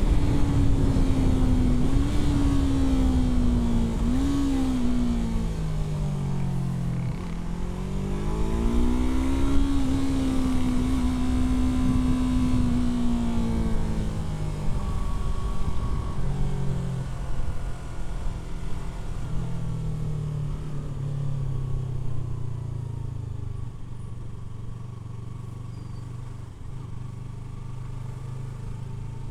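Yamaha R3's parallel-twin engine heard from the rider's seat under way, its revs dipping and climbing with the throttle, holding steady for a few seconds near the middle. About halfway through the revs drop to a low, steady note that grows gradually quieter.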